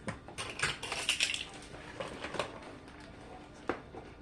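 A measuring spoon clicking, tapping and scraping against a container while baking soda is measured out. A quick run of light clicks comes in the first second and a half, then scattered taps and one sharp click near the end.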